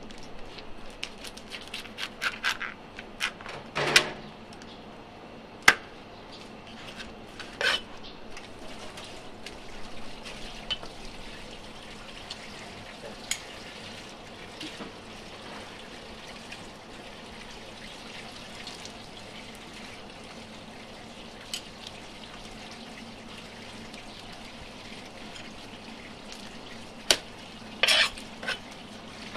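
Meat cleaver and giant river prawns knocking and clicking against a round wooden chopping block: a cluster of sharp knocks in the first eight seconds, then mostly still, then two more knocks near the end.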